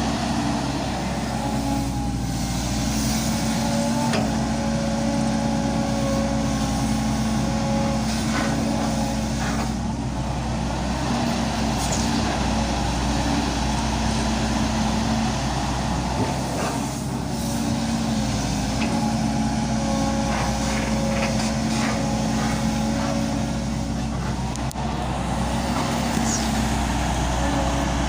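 Volvo EC200 hydraulic excavator's diesel engine running steadily under work, with a whine that swells in and drops out for several seconds at a time. There are a few sharp knocks along the way.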